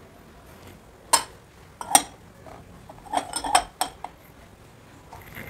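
Glass and porcelain clinking as an inverted glass funnel is set down over a china dish: two sharp clinks about a second and two seconds in, then a run of lighter clinks and knocks around three to four seconds in.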